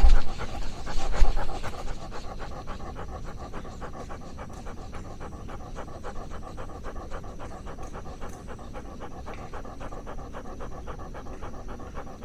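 Senior dog with canine cognitive dysfunction panting quickly and steadily, heard close up from a camera strapped on its back. A few louder low bumps come in the first two seconds.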